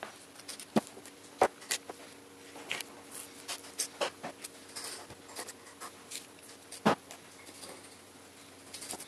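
Knife cutting and scraping meat off a pork hock bone on a plastic cutting board: irregular sharp taps and scrapes of the blade, the loudest about seven seconds in, over a faint steady hum.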